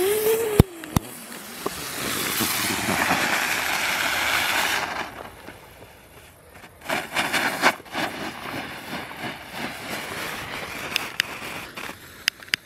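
Small ground fireworks going off: a whistle rising in pitch ends with a sharp pop about half a second in, then a few seconds of loud sizzling hiss of burning sparks. Scattered crackles and pops follow around seven to eight seconds in, with smaller ones after.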